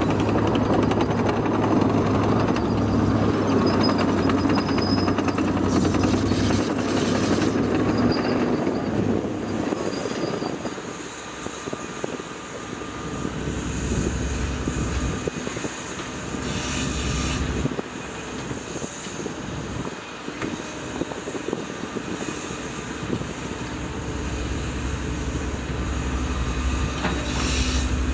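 Case CX130D long reach excavator's diesel engine working under hydraulic load as the boom and bucket dig and lift. The engine is loudest for the first ten seconds, eases off in the middle and builds again near the end, with a few brief high-pitched bursts.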